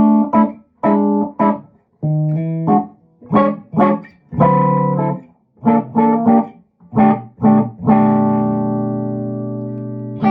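Tom Anderson Classic electric guitar with SC stacked single-coil pickups, played in short chord stabs and picked notes. From about eight seconds in, a chord is left ringing and slowly fading. It is being played while the guitar's tone knob, which has a small capacitor value, is demonstrated.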